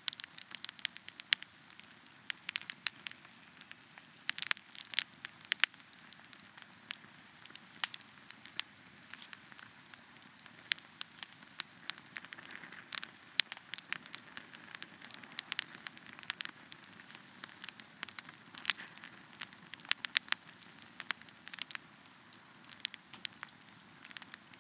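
Campfire crackling: irregular sharp pops and snaps, many a second at times, over a soft steady hiss.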